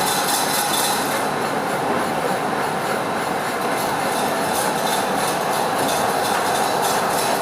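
Gear grinding machine grinding the teeth of a 1.75-module, 15° helical gear. It makes a steady grinding hiss with a constant whine.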